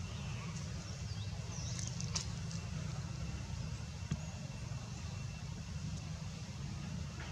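Outdoor background noise: a steady low rumble with a thin high tone, a few faint high chirps about two seconds in and a single click about four seconds in.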